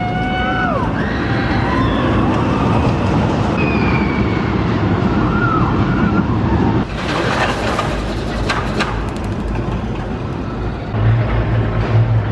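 Skyride gondola travelling along its cable: a steady rumble, with a few short falling squeals near the start, a run of rapid clattering about seven seconds in, and a low hum near the end.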